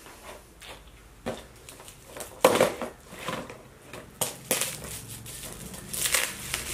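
Shiny gold gift wrap crinkling and tearing as it is pulled off a present by hand, in irregular rustling bursts that grow denser near the end.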